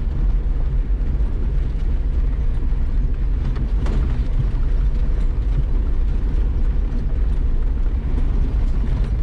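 Nissan Terrano 4x4 driving a dusty off-road track, its engine and tyre rumble heard from inside the cabin as a steady low drone, with a faint knock about four seconds in.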